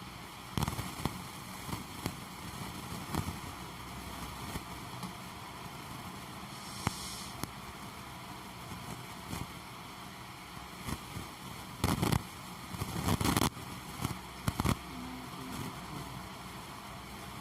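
Scattered sharp knocks and clicks over a steady background hiss, with a dense cluster of them about twelve to thirteen seconds in.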